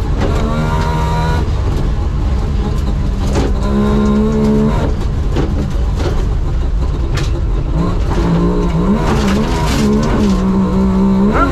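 Wartburg 353WR rally car's three-cylinder two-stroke engine running hard from inside the cabin, its note climbing and dropping several times as the car is driven through the gears and on and off the throttle, with a steady road rumble and occasional knocks from the car running over bumps.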